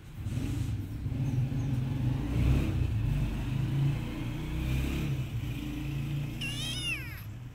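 Domestic cat purring close to the microphone, a low steady rumble. Near the end a kitten gives a high meow that falls in pitch.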